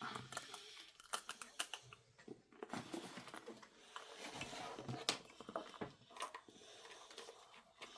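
Scattered light clicks and soft rustling from handling a small cable and a USB power pack while plugging the cable in.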